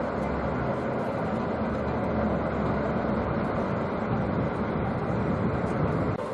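Steady rumble and hiss of a train, with a low, even hum underneath.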